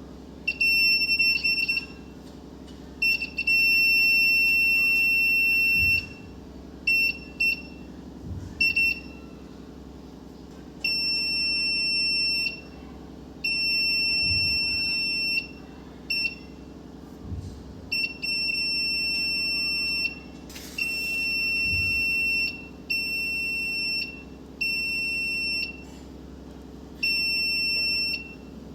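The 5 V buzzer of a homemade BC547 fire-alarm circuit sounding a single high-pitched steady tone, switching on and off in uneven spells of about half a second to three seconds as the alarm is triggered and released.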